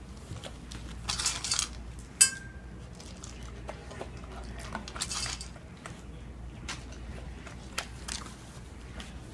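Dry dog kibble rattling and crunching in a stainless steel bowl as a dog eats, with a sharp clink on the bowl about two seconds in that leaves it briefly ringing, and a few smaller clicks near the end.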